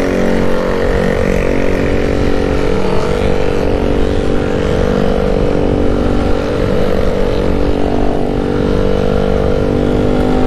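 Single-cylinder motor scooter engine running at a fairly steady pitch while the rider holds speed on the track. Wind rumbles over the microphone throughout.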